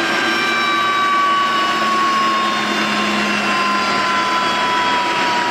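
Garrett GTCP85 gas-turbine APU running: a loud steady rush of exhaust and intake air with a high turbine whine that drifts slowly lower in pitch.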